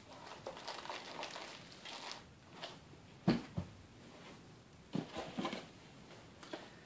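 Handling noise from small cardboard boxes and bagged printer parts on a table: light rustling, clicks and knocks, with a couple of sharper taps past the middle and a short cluster of clicks later on.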